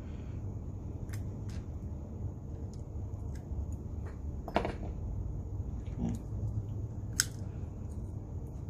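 Light clicks and taps of metal tweezers and small tools being handled at a silicone repair mat, a handful of them scattered through, the sharpest about seven seconds in, over a steady low rumble.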